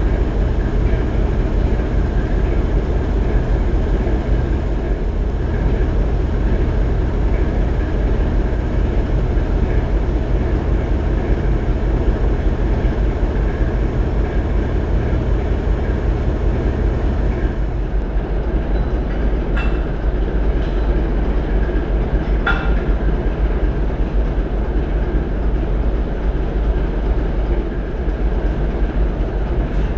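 British Rail Class 09 diesel shunter's English Electric six-cylinder engine running with a steady, deep rumble. A few sharp metallic clinks ring out around two-thirds of the way through.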